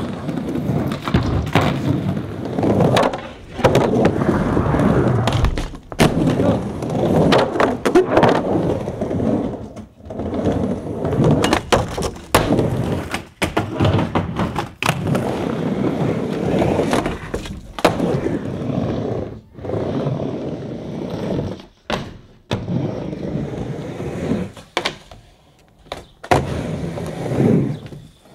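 Skateboard wheels rolling on wooden backyard ramps, broken by sharp knocks and bangs as the board hits the plywood and coping on tricks and landings, over a run of several quick clips.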